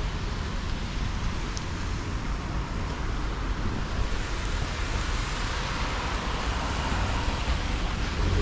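Steady hiss of rain falling, with a low wind rumble on the microphone. The hiss swells slightly past the middle.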